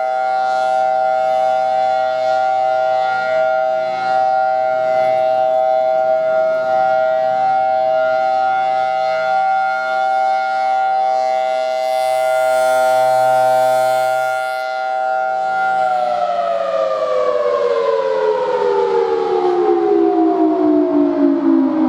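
Federal Signal Thunderbolt 1003 outdoor warning siren sounding a steady two-note chord during its scheduled test. About three-quarters of the way through it begins winding down, its pitch falling steadily.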